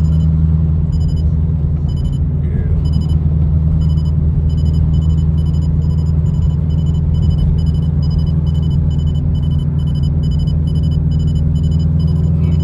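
Camaro ZL1's supercharged V8 and exhaust droning steadily at an even cruise, with a faint regular high ticking over it.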